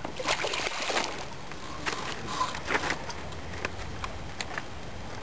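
A hooked carp thrashing at the surface, making a run of irregular water splashes. The biggest splashes come in the first three seconds, then smaller ones follow.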